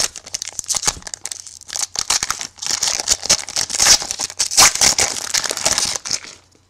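Foil trading-card pack wrapper crinkling as it is torn open and handled, in two busy stretches that stop about six seconds in.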